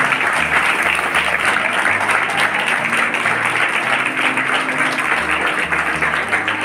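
Audience applauding steadily: many hands clapping at once in a continuous patter.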